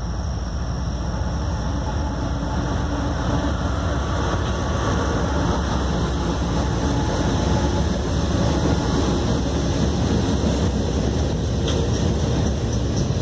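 A freight train passing close by: several CSX diesel locomotives rumbling past, then freight cars rolling by on the rails.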